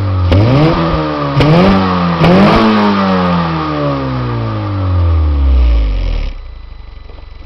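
2007 Honda Civic EX's 1.8-litre four-cylinder revving through a Tanabe Medallion cat-back exhaust, heard at the tailpipe. It is blipped three times in quick succession, the last rev falling slowly back over about three seconds. About six seconds in it drops suddenly to a much quieter low hum.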